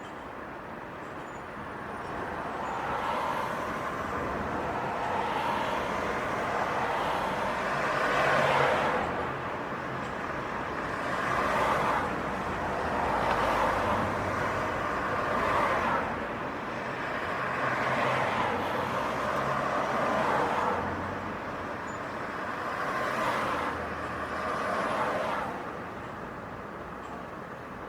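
City street traffic: a series of cars passing one after another, each one's tyre and engine noise swelling and fading over a steady traffic hum.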